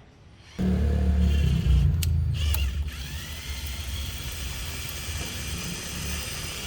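A handheld power tool, most like an electric drill, switches on suddenly and runs for about seven seconds. It is loudest and heaviest at the start, settles to a steady run, then cuts off abruptly.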